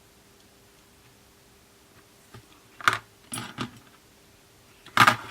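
Tools and small phone parts being handled on a workbench: a few sharp clicks and short scrapes, a cluster about three seconds in and a loud click near the end.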